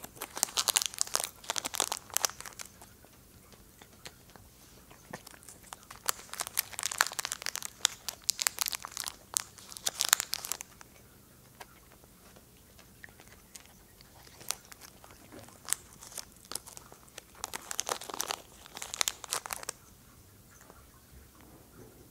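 A foil treat packet crinkling while a cat crunches treats taken from the fingers. The crackling comes in three spells of a few seconds each: at the start, around the middle and near the end.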